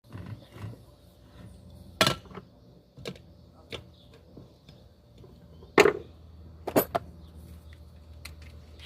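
Handling of a metal pressure cooker: a few separate knocks and clacks, the loudest about two seconds in and just before six seconds, with a pair of quicker clacks about a second later.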